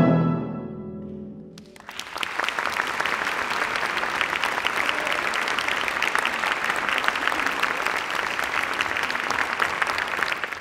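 Last chord of a harp concerto with chamber orchestra dying away over about a second and a half. Then an audience breaks into steady applause.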